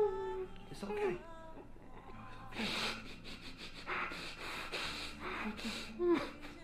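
A man whimpering with a short falling voice sound near the start, then a few soft, breathy hisses about a second apart, typical of sobbing breaths.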